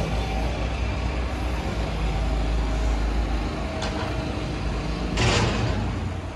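Road traffic with a vehicle engine's steady low rumble close by, a sharp click a little before four seconds in and a brief hiss a little after five seconds.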